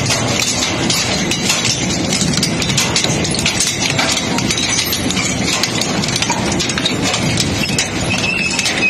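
Industrial crushing machine breaking up scrap: dense, continuous clattering and cracking of material being crushed, over a steady mechanical rumble. A high metallic squeal starts near the end.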